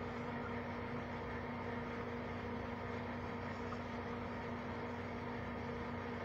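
Through-the-wall hotel air-conditioning unit (PTAC) running: a steady hum over a constant rushing noise.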